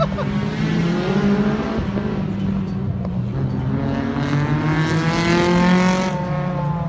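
Car engine revving under acceleration, its pitch climbing in several pulls. It is loudest about five seconds in.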